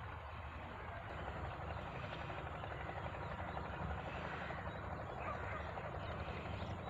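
Steady outdoor background noise with a fluttering low rumble.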